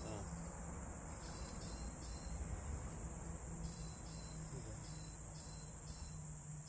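Insects chirring steadily, a high cricket-like trill, with a second pulsing insect call repeating about twice a second in the latter half and a low steady hum underneath.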